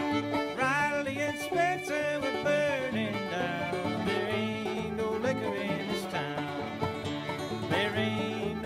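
Bluegrass string-band music: a fiddle leads with sliding notes over banjo, guitar and a steady bass line.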